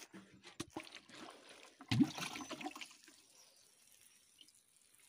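Water spraying from a garden hose onto loose soil and seedlings, a splashing trickle. It is loudest, with a bump, about two seconds in, then settles to a softer steady spray.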